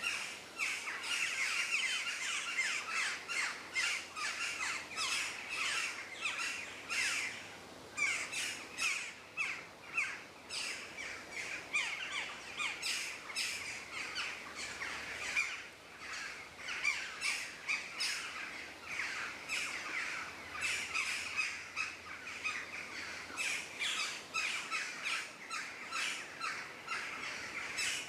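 Forest bird chorus: many birds calling at once in a dense, continuous stream of short chirps and squawks, most of them quick downward-sweeping notes.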